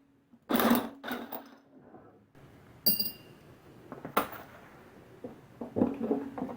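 A handful of separate metallic clanks and knocks of tools and engine parts being handled and set down, one about three seconds in ringing briefly like struck metal.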